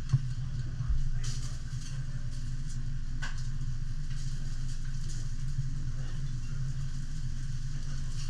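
Teppanyaki cooking at a steel griddle: a chef's knife and spatula clicking and scraping on the hot plate a few times over a faint sizzle, against a steady low hum.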